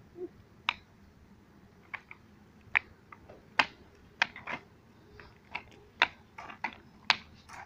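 A skateboard clacking on concrete: about a dozen sharp, irregular knocks as the board's tail and wheels hit the pavement while the rider steps on and off and flips it during trick attempts.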